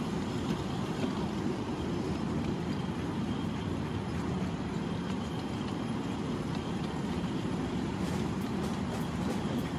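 1/8-scale live steam Pacific locomotives running on the track: a steady low running noise, with a run of sharp clicks near the end.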